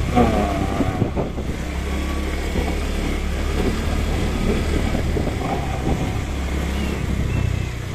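Motorcycle engine running steadily at low speed as it is ridden, heard from the rider's position, with wind noise on the microphone.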